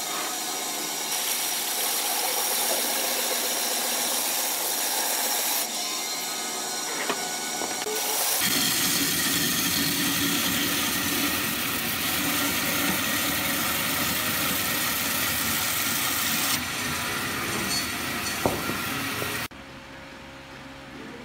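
Bandsaw running and cutting through a thick hardwood block: a loud, steady saw noise, deepening about a third of the way in. Near the end it drops suddenly to a much quieter background.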